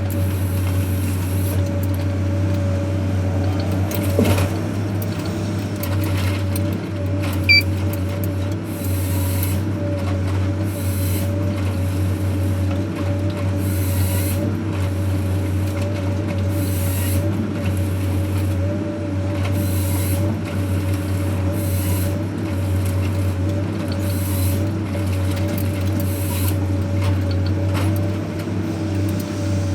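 Forest harvesting machine's engine running steadily with a low hum, with short hissing bursts every second or two.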